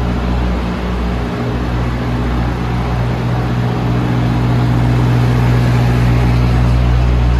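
DAF CF290 lorry's diesel engine running steadily, its low hum getting a little louder about halfway through.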